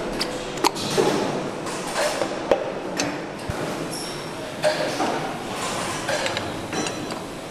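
Metal clinks and sharp knocks of pistons and connecting rods being handled and fitted into an engine block's cylinder bores: a scatter of separate taps over steady workshop background noise.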